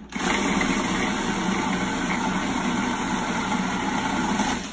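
Countertop food processor running steadily, chopping frozen rhubarb with sugar and a little water into a purée; the motor cuts off near the end.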